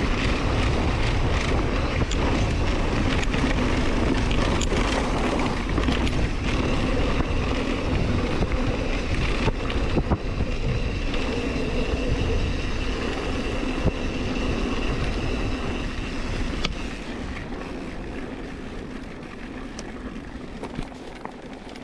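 Mountain bike riding down a dirt trail: tyre rumble, frame and drivetrain rattle with scattered clicks, and wind on the microphone. A steady high tone runs through the middle stretch, and the sound gets quieter over the last few seconds.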